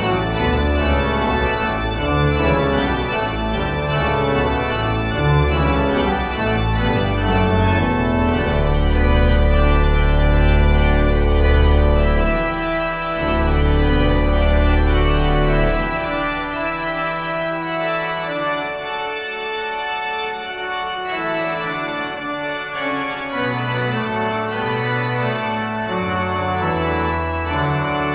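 Willis/Walker pipe organ playing loud sustained chords with deep pedal bass notes; the pedal bass drops out about halfway through and returns near the end.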